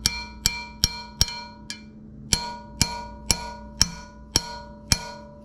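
Repeated light metal-on-metal taps on a valve spring retainer and compressor on a GM 3800 cylinder head, about two a second with a brief pause near two seconds in, each leaving a short bell-like ring. The tapping breaks the retainer loose from its valve locks so the spring can be compressed.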